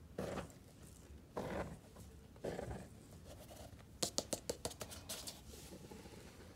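Hands and a plastic cup pressing and scooping into a tub of fine dry powder: three soft swishes, then a quick run of crisp crackles about four seconds in.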